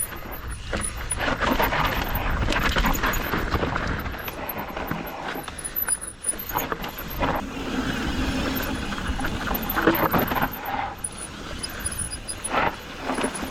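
Mountain bike descending a dirt trail: tyre and frame noise from the ride, with squealing brakes.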